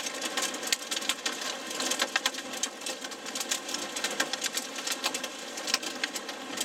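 Rain and hail pelting the car's roof and windshield, heard from inside the cabin as a dense, irregular patter of sharp ticks over a steady hiss.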